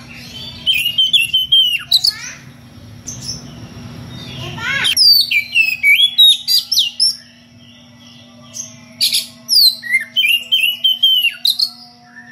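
Oriental magpie-robin (kacer) singing its loud challenge song at rivals: three bouts of rapid, varied whistles and chirps with sharp falling notes, each about two seconds long with short pauses between. A steady low hum runs underneath.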